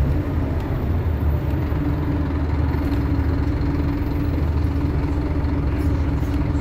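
Scania OmniCity single-deck bus's rear-mounted diesel engine and driveline running steadily, heard from inside the passenger saloon as a low rumble with a steady hum over it.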